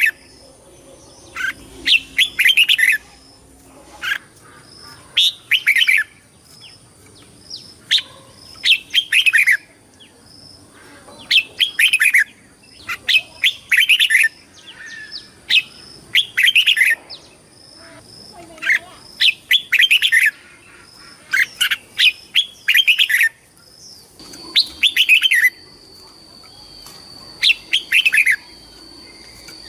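Red-whiskered bulbul singing: short, bright warbling phrases of quick rising and falling notes, repeated about every one to two seconds.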